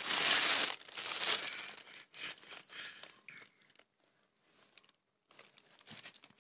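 Kitchen preparation noises: a loud rush of noise lasting under a second, another burst about a second in, then scattered rustles and light knocks, with a quiet stretch past the middle.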